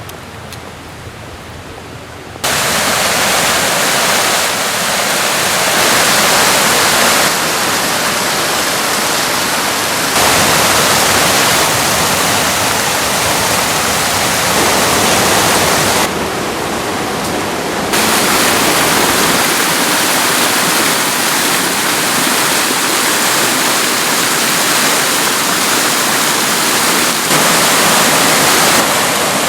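Rushing mountain river, a steady loud rush of water over rocks. It is quieter for the first two seconds and then jumps abruptly in level several times.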